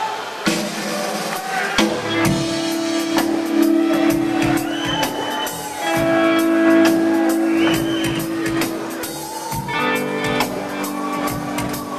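Live electric bass solo: long held bass notes with drums hitting under them.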